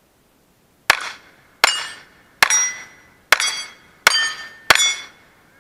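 Six rapid shots from a Browning Buck Mark .22 pistol, roughly one every three-quarters of a second, each followed by the ringing of a struck steel plate.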